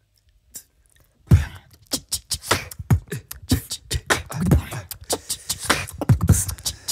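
Human beatboxing into a microphone that starts about a second in: deep kick-drum sounds and sharp hi-hat-like clicks in a quick, steady beat.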